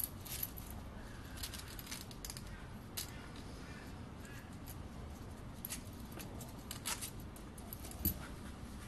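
Small steel screws and rods being worked out of a brass model engine's cylinder assembly by hand, giving scattered light metallic clicks and taps. The sharpest click comes about eight seconds in.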